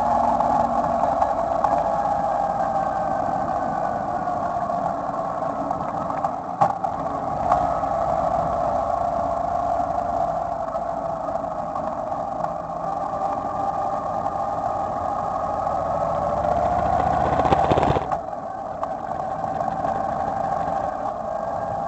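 Motorcycle engine running under way, heard from the bike itself, its pitch drifting slowly up and down with speed. Two light clicks come about seven seconds in, and near the end the engine swells and then drops off suddenly.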